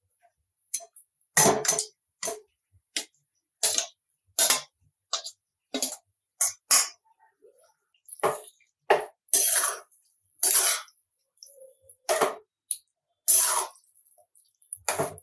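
Metal spoon scraping and knocking thick yogurt-marinated chicken out of a bowl into a metal pan, then a spatula stirring it into the onion masala, clinking and scraping against the pan. Separate clinks and scrapes come one or two a second, a few of them longer scrapes.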